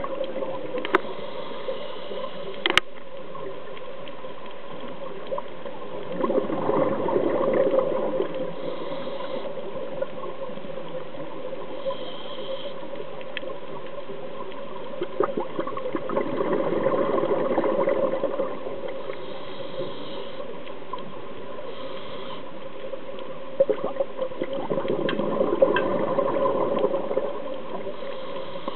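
Underwater sound through a camera housing: a steady hiss and hum, with a swell of bubbling about every nine seconds from a scuba diver's exhaled bubbles. A few sharp clicks sound now and then.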